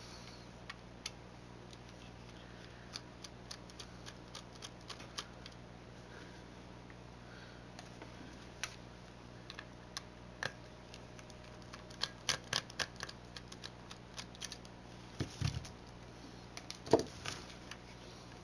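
Light scattered clicks and taps of a small screwdriver and tiny screws working on a plastic remote control case, with a quick run of clicks about two thirds of the way through and a couple of duller knocks near the end, over a steady low hum.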